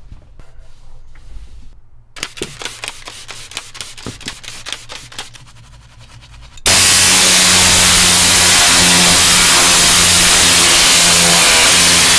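A detailing brush scrubbing a tractor floor pedal in quick back-and-forth strokes. About six and a half seconds in, a loud, steady rush of air with a low hum under it starts suddenly from a powered cleaning tool, then cuts off abruptly.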